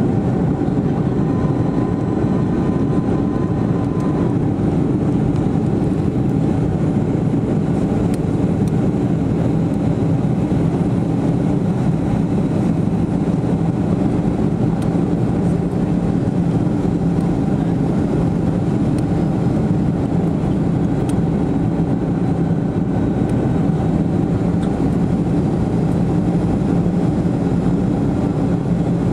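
Jet airliner's turbine engines heard steadily from inside the cabin, a constant roar with a low hum. A faint high tone sits over it for the first few seconds.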